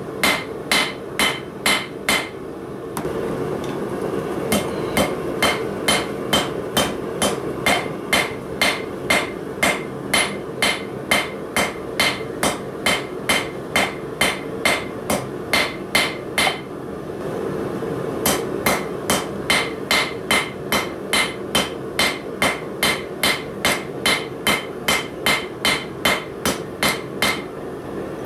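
Hand hammer striking a red-hot bar of 3/8-inch 1018 steel on an anvil, about two blows a second, each with a bright ringing ping. The blows come in three runs broken by two short pauses, over a steady rushing noise.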